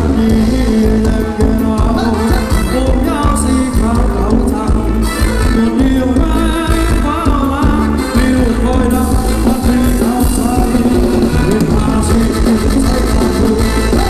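A band playing Thai ramwong dance music, loud, with a steady beat and a singer's melody over it.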